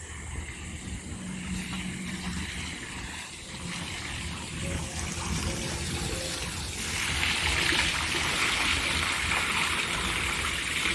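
Running water trickling and splashing steadily. About seven seconds in it becomes louder, a fuller rushing sound.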